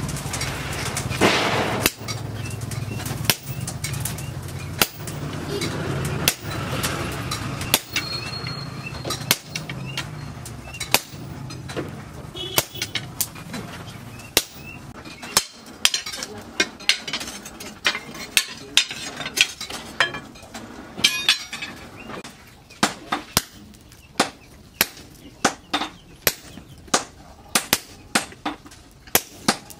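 Hand hammer striking red-hot steel on a small post anvil while forging a cleaver blade: single sharp metallic blows, about a second or more apart at first, then quicker, about two a second, in the second half. A low steady hum sits under the first half.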